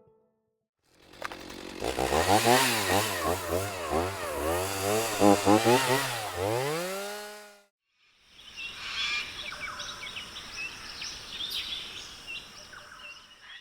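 Chainsaw engine revving up and down over and over for several seconds, then cutting out. It is followed by a few seconds of chirping bird calls over a soft hiss.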